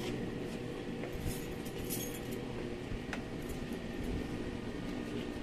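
Light clinks and rubbing of a Fiat Doblo's front door window glass being handled and worked into the door frame by gloved hands, a cluster of clinks about a second in and a single click a little past the middle, over a steady low hum.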